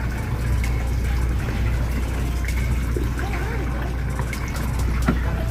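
Steady low drone of a fishing boat's engine and hydraulic pot hauler as a crab pot line is hauled in, with water washing along the hull and a few small knocks.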